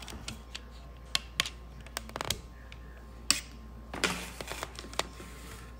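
Scattered light clicks and taps of hands handling small sticker sheets, backing paper and plastic packaging on a wooden table, with a longer rustle about four seconds in.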